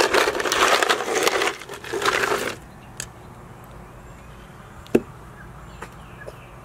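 Ice cubes rattling and crunching as a hand digs through a cooler full of ice, for about two and a half seconds. Then a few sharp knocks, the loudest about five seconds in, as a fish is set down on a wooden cutting board.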